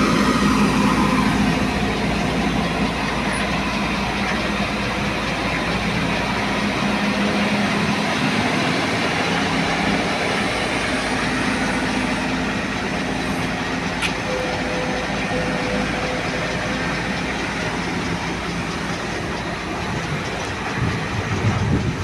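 Excavator's diesel engine running steadily under load, a continuous low hum with mechanical clatter over it.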